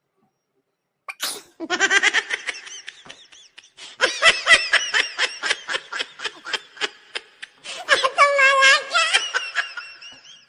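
A woman's short sharp sneeze about a second in, then a long fit of laughter in quick breathy bursts, ending in a high held laugh about eight seconds in.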